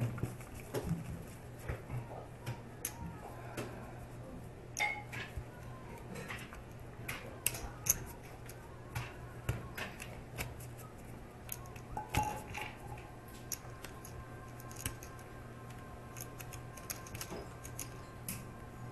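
Poker chips and playing cards being handled at a card table: irregular, sharp little clicks of chips knocking together and cards being gathered and shuffled, over a steady low hum.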